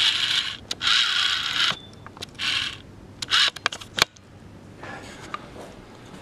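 Gritty scraping crunches, about one a second over the first few seconds, followed by a few sharp clicks around four seconds in: footsteps on a debris-strewn floor.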